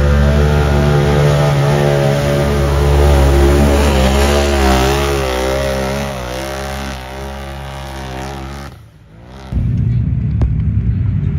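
Big-tire mud racing vehicle's engine running at high revs, its pitch wavering up and down from about four seconds in. The sound drops away nearly nine seconds in, and a lower, rougher engine rumble takes over.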